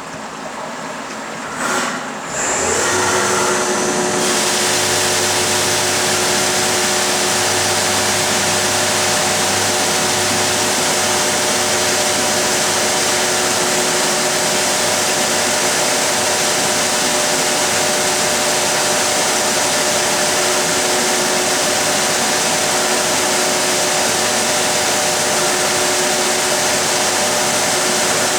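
Bridgeport CNC vertical machining centre running a part program. About two and a half seconds in the machine starts up and then runs steadily: a hum of several steady tones under a loud hiss.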